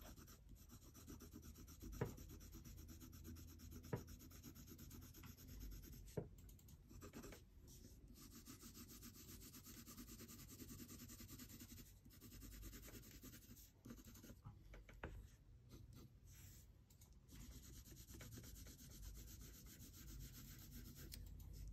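Faint scratching of a black colored pencil rubbed back and forth on paper while shading, with a few light ticks.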